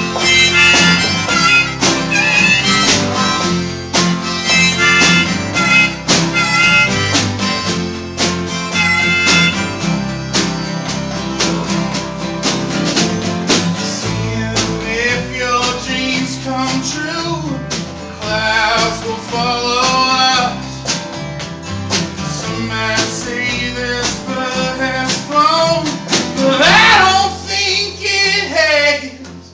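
Live acoustic band playing: strummed acoustic guitar, a harmonica held in a neck rack taking the lead, steel guitar and a snare drum keeping the beat. Wavering, gliding held notes come in from the middle on.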